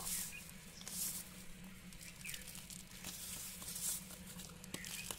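Soft rustling of newspaper and gritty scraping of potash-and-sulphur powder as it is pressed by hand into a small glass bottle, in short bursts with a few faint ticks.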